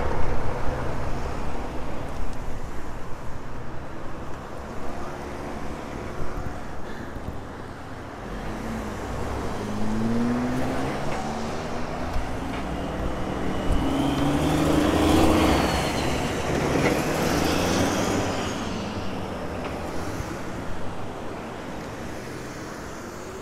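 Wind and rolling noise on the microphone while riding an electric mountain bike, gusty at first. A whine rises in pitch a couple of times and swells to its loudest about two-thirds of the way through, then fades.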